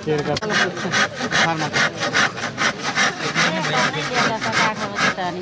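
Hand saw cutting across a wooden plank in quick, even back-and-forth strokes.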